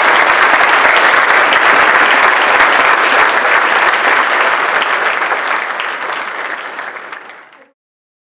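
A large audience applauding, a dense, steady clapping that fades out near the end and then stops.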